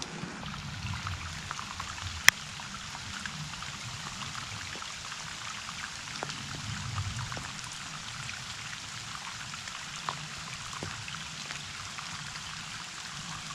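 Steady rain with scattered drops ticking, and one sharp, loud click about two seconds in.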